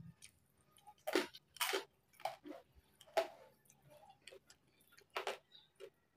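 Close-up crunching and chewing of crispy deep-fried pork skin (crispy pata), in short, irregular crackles several times over.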